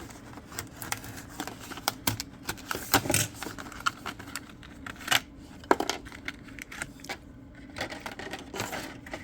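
Plastic blister packaging of a Matchbox die-cast toy car being cracked and pried open by hand: irregular sharp clicks and crackles, with a few louder snaps about three and five seconds in.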